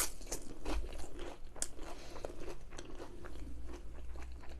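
Close-up mouth sounds of chewing crispy battered onion rings: irregular crunches and crackles with wet chewing in between.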